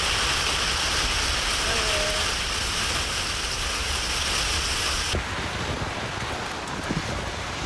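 Heavy downpour: a steady hiss of falling rain. The upper part of the hiss drops away abruptly about five seconds in.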